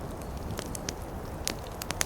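Wood fire crackling in a fireplace: irregular sharp pops and snaps, several close together near the end, over a steady low rumble.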